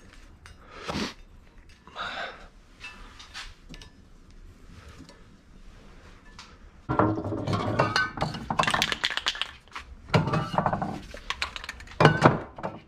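A few light knocks and scrapes, then from about seven seconds a loud, dense clatter of hard objects being moved around on a cluttered workshop shelf.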